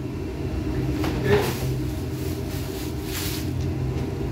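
Steady low hum of a commercial kitchen's extractor hood and gas range, with two brief noisy handling sounds, one about a second and a half in and one about three seconds in.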